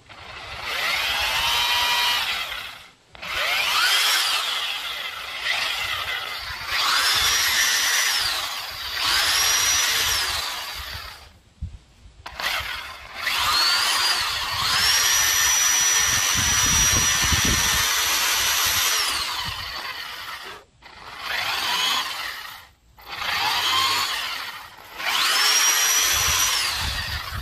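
Corded DeWalt electric drill boring a hole into a small wooden block. It runs in a series of trigger pulls, about nine. Each time the motor whine rises as it spins up, holds steady and falls away as the trigger is released, with brief pauses between runs and one longer run of about six seconds midway.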